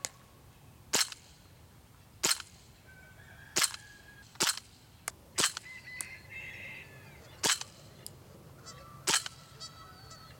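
KWC CO2 blowback Desert Eagle airsoft pistol fired semi-automatically, about seven sharp shots one to two seconds apart, with its CO2 cartridge running a little low. Birds call in the background between the shots, around the middle and again near the end.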